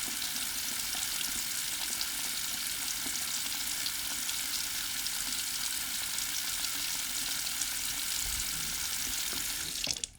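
Faucet running full blast into a sink: a steady, even rush of water that stops near the end.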